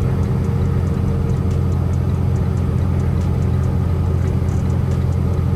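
Semi-truck engine and road noise while driving, a steady low rumble.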